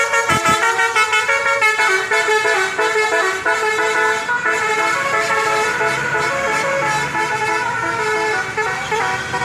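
Bus telolet horn, a Basuri multi-tone air horn, playing a tune of quickly changing notes, several horns sounding together.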